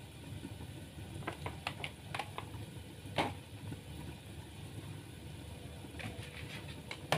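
Cooking oil being added to a pan on the stove to heat: a few light clicks and knocks of the bottle and pan, a short louder pour or scrape about three seconds in, and more clicks near the end, over a steady low hum.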